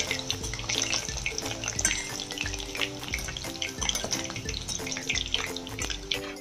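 Chicken pakoras sizzling and crackling in hot mustard oil as they are scooped out with a wire skimmer, under background music with steady low beats.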